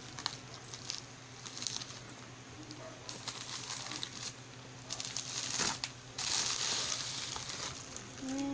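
Plastic packaging being torn and handled: a courier pouch ripped open and a bubble-wrapped package pulled out, with irregular crinkling and crackling and a louder, longer rustle about six seconds in.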